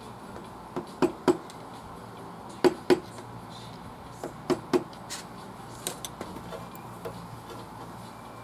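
Hard metallic taps or clinks in groups of two or three, about a quarter-second apart, each with a short ring. Typical of tools striking or being set down on metal parts during scooter repair work.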